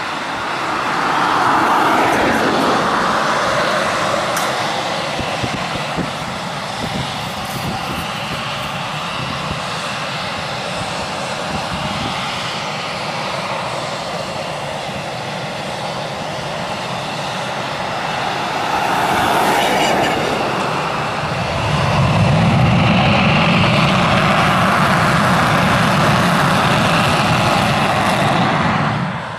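Eurofighter Typhoon's twin EJ200 turbofan jet engines running as the fighter taxis, a steady jet roar with a thin high whine. About three quarters of the way through it gets louder and a deep rumble joins in.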